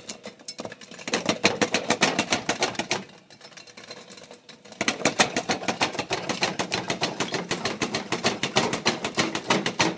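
Popcorn kernels popping under the lid of a stainless steel pan, a dense rapid rattle of pops. The popping thins out for a couple of seconds about three seconds in, then comes back thicker.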